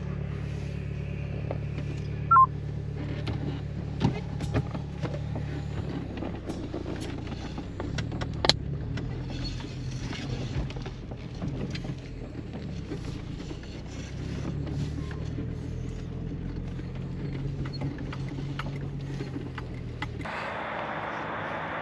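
VW Mk3 Golf Variant engine running steadily, with scattered clicks and a short high-pitched chirp about two seconds in. The engine sound cuts off suddenly near the end.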